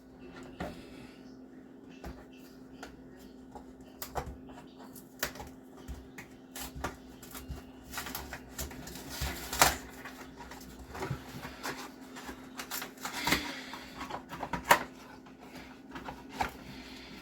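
Pancake mix packaging being handled and opened: irregular clicks, taps and rustles, over a steady low hum.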